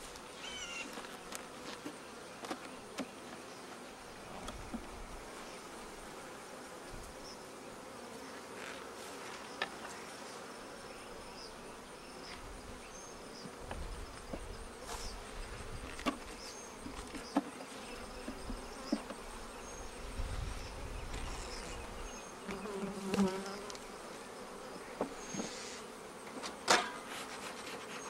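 Honey bees buzzing steadily around an opened hive, with scattered sharp clicks and knocks from the wooden hive boxes being worked, the loudest near the end.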